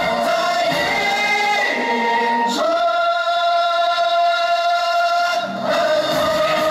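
Music of long, choir-like held chords, the chord changing a few times, with a brief dip just before the last change.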